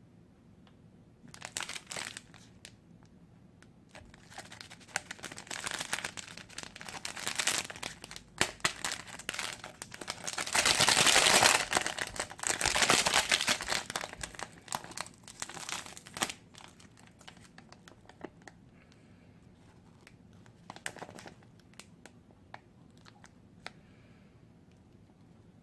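Plastic instant-ramen packet crinkling and being torn open, in irregular bursts that are loudest in a long stretch about ten to fourteen seconds in, then dying down to a few faint rustles.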